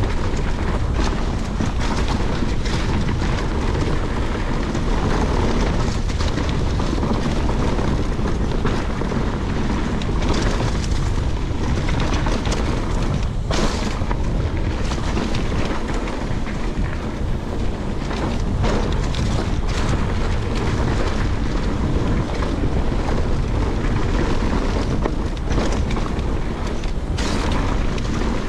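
Wind buffeting the microphone and tyres rolling over a dirt trail on a moving mountain bike: a loud, steady rumble with occasional short knocks and rattles from bumps.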